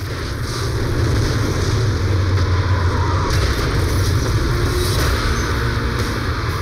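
Action-film sound effects: a loud, continuous low rumble of explosions and crashing, collapsing wreckage.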